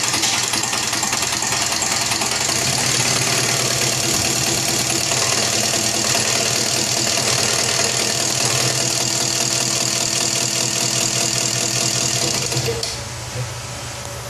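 Isuzu 4BC2 four-cylinder diesel engine running steadily at idle with a diesel knock, then shutting off near the end.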